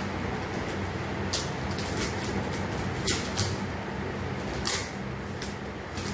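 Packaging on a cricket bat's box being cut and torn open: several short, sharp scratchy rips of tape and wrapping in small clusters, over a steady low hum.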